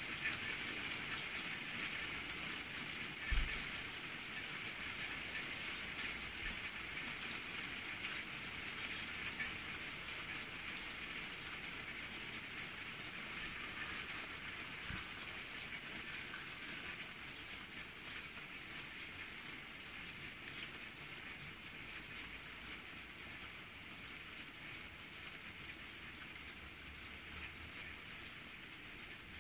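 Steady rain falling on a wet tiled patio, with scattered sharper drop hits, easing slightly toward the end. A single brief low thump sounds about three seconds in.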